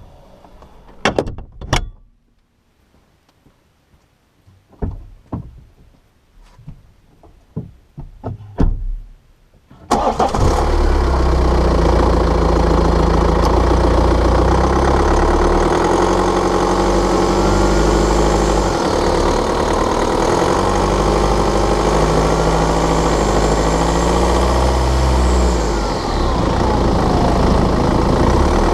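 Several sharp clicks and knocks, then about ten seconds in the BMW N47 2.0-litre four-cylinder diesel starts and runs steadily, its low note shifting a few times. This is a cold start of an engine whose owner traces a rattling/ticking noise, heard when cold and under load, to a faulty injector.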